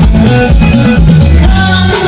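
A loud song with singing and a heavy bass beat, played from a phone through a mixer and outdoor PA speaker cabinets with 15-inch drivers.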